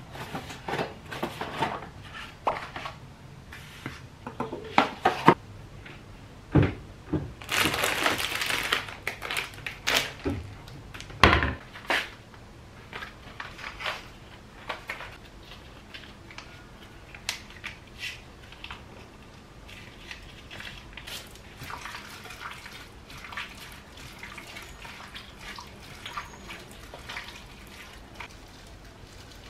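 Kitchen handling sounds: knocks and clinks of containers and a glass bowl, with a short rush of liquid about eight seconds in. After about twelve seconds it turns quieter, with soft wet squishing as raw chicken thighs are mixed by hand in a red sauce.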